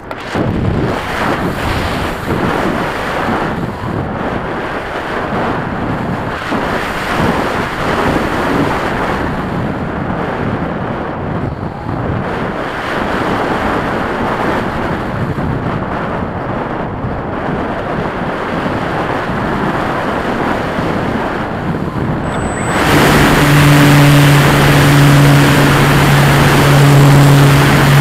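Wind rushing over the microphone of an onboard camera on a radio-controlled model airplane in flight, with no motor tone heard at first. About 23 seconds in, the plane's motor comes in and the sound gets suddenly louder, with a steady propeller hum over the wind.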